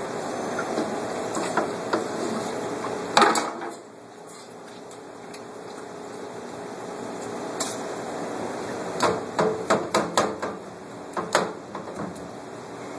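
A series of sharp knocks over steady background noise: one loud knock about three seconds in, then near the end a quick run of about six knocks, followed by two more.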